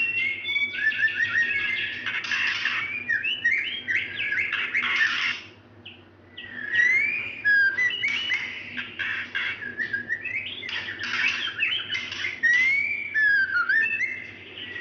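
Female white-rumped shama calling to a male, the call of a hen in breeding condition: a busy run of whistled notes and rising and falling slurred chirps, with a brief break about six seconds in.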